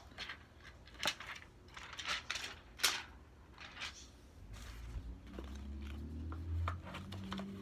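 Handling noise: a few sharp clicks and short rustles in the first few seconds, then a low steady hum from a little past halfway.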